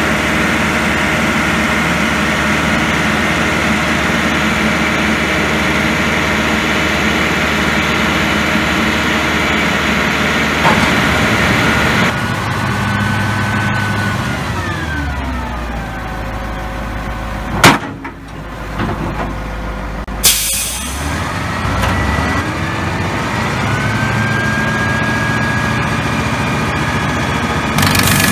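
Caterpillar 3208 V8 diesel of a crane truck running steadily. Partway through, its revs drop away. Two sharp bangs follow, about two and a half seconds apart, the second with a brief hiss of air, and then the revs climb back up.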